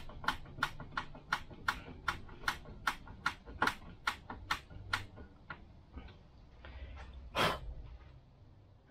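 Hand screwdriver turning a screw into the metal base of a boat's stern light, clicking in a steady rhythm of about three clicks a second for the first five or six seconds. One louder click follows near the end.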